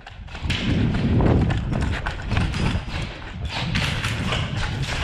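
Quick footsteps of a player running on a concrete floor, a dense series of knocks with gear rattling and a low rumble on the body-worn camera.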